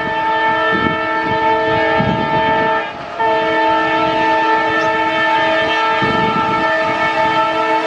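WDM3A ALCO diesel locomotive sounding its horn in a long blast that breaks off briefly about three seconds in, then blows again.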